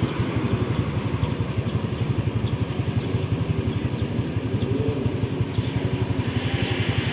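Motorcycle engine running steadily close by, a fast, even low pulse. Road noise swells near the end.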